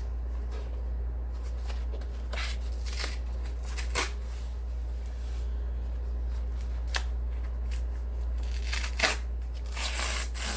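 Cardboard record mailer being pulled and torn open by hand, in scattered short rips and rustles, with a longer, louder tear near the end. A steady low hum runs underneath.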